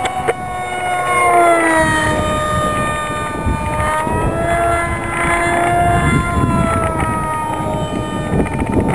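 Brushless electric motor and propeller of a ParkZone F27C Stryker RC flying wing whining in flight overhead. The pitch drops about one to two seconds in, climbs again around four seconds, and sinks slightly near the end.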